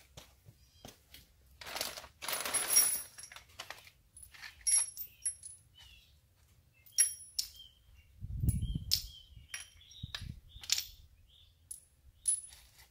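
Scattered light metallic clinks and taps, some ringing briefly, like small metal objects being handled, with a rustle about two seconds in and a dull thump a little past eight seconds in.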